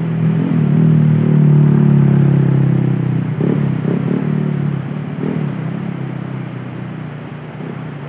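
An engine running with a steady, pitched hum that swells to its loudest about a second or two in, wavers in pitch a few times and then slowly fades, over the rush of flowing river water.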